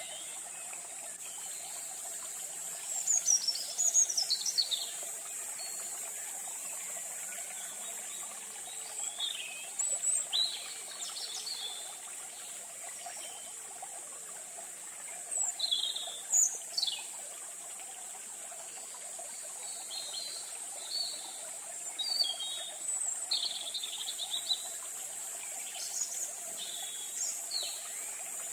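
Birds chirping in short scattered calls, some sliding downward in pitch, over a steady high insect drone.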